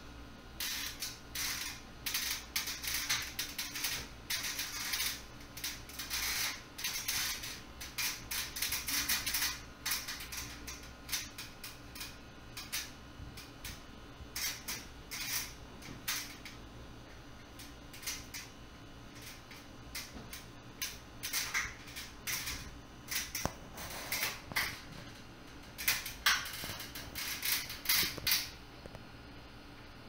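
Irregular rustling, scraping and knocking from someone working in the ceiling space above a wooden ceiling, pulling fire-alarm detector wire, over a steady low hum. The clicks come thickest at the start and in bursts again later.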